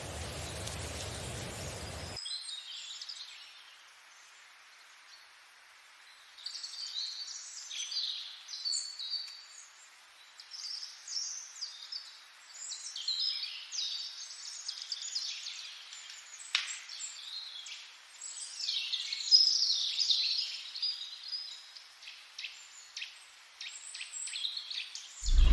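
Birds chirping and singing in many short calls and trills, with a steady hiss for the first two seconds.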